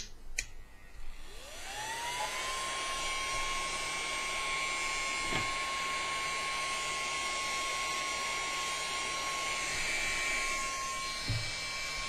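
Mini USB desk vacuum cleaner: a click, then its small electric motor spins up in a rising whine over about a second and runs steadily with a high whine and a rush of air. The air is blowing out through the vent rather than being sucked in.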